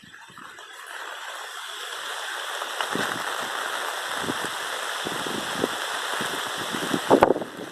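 Heavy rain pouring down in a steady hiss that swells over the first couple of seconds. Near the end the hiss drops suddenly and loud, irregular low knocks take over.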